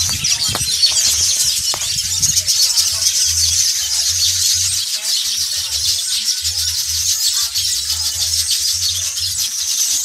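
A nesting colony of weaver birds chattering: many birds at once in a dense, continuous high-pitched chorus of short chirps.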